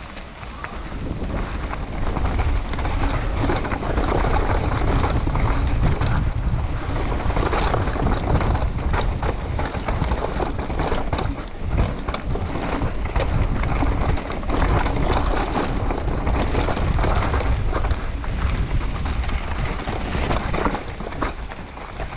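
Mountain bike riding fast down a dirt and rock trail: a steady rush of wind on the action camera's microphone with tyre rumble and frequent clicks and knocks as the bike rattles over stones and roots, growing louder over the first two seconds.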